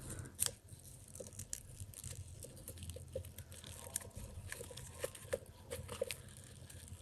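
Faint, scattered ticks and rustles of paper yarn being pulled through stitches with a crochet hook while single crochet stitches are worked.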